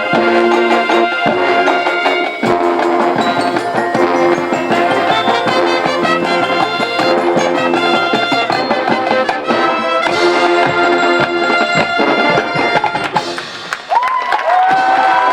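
Marching band playing loud brass with drums and percussion, the horns holding chords. Near the end the music stops and the crowd starts cheering and whistling.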